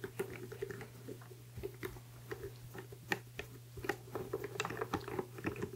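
Hand screwdriver driving a speaker's mounting screw into its cabinet: a run of small, irregular clicks and creaks over a faint steady hum.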